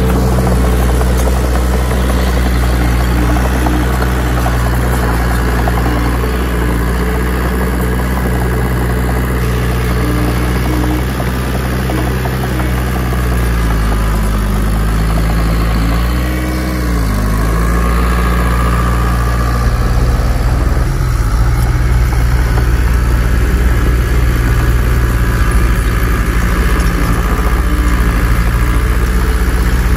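Heavy diesel engine of a CAT bulldozer running steadily. Its pitch sags briefly and comes back up about halfway through, and the sound turns rougher and a little louder in the last third.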